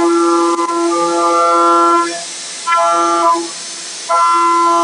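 CNC machining center spindle turning an indexable insert cutter at about 17,900 rpm, high-speed milling a metal impeller: a loud, steady whine with several pitches stacked above it. It drops away about two seconds in and again past three seconds, as the cutter comes out of the cut.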